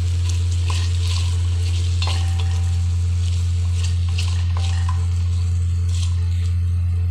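Chicken pieces frying and sizzling in a metal pot as they are stirred with a wooden spatula, with scattered scrapes and knocks against the pot. A loud steady low hum runs underneath.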